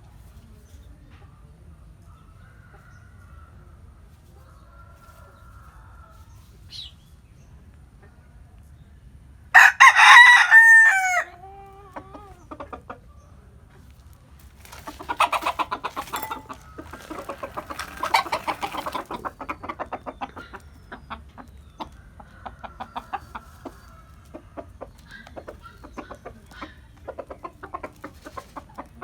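A bantam rooster crows once, loud and short, about ten seconds in, the call ending in a falling note. From about fifteen seconds in, chickens cluck in quick runs of short notes that thin out toward the end.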